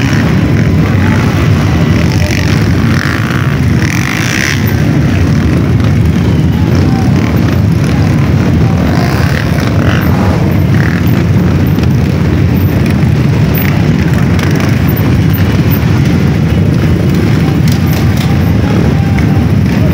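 Many dirt-bike engines running at once, making a loud, steady din from a large pack of trail bikes.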